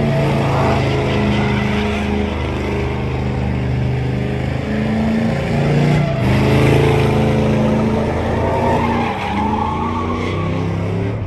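Pickup truck doing donuts, its engine held at high revs with the pitch rising and falling, over the tyres squealing and skidding on the asphalt.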